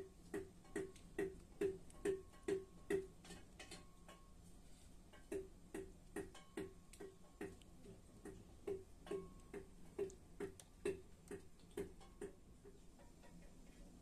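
A stick pounding down into a tall metal jug in a steady rhythm, about two strokes a second, each knock with a short metallic ring. The strokes pause briefly about four seconds in, resume, and die away near the end.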